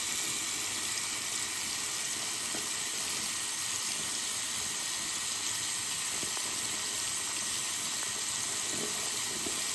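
Bathroom sink faucet running in a steady stream, the water splashing over a hand and into the basin with an even hiss.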